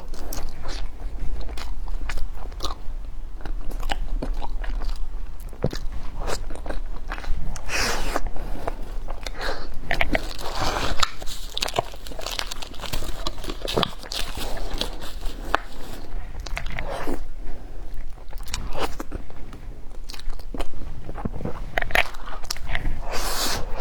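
Close-miked crunching and biting into crisp food, with chewing: many sharp, irregular crunches.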